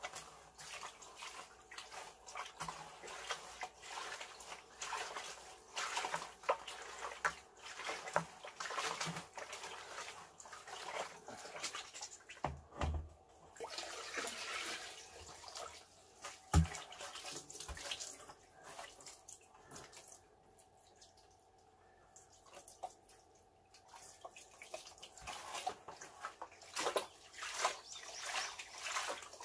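Water from a garden hose running and splashing into a plastic bucket, with sloshing as the hose is moved about. There are two dull knocks of a plastic bucket being handled a little before and after the middle, and a quieter spell later on. The water is being drawn to dissolve sugar for bee-feeding syrup.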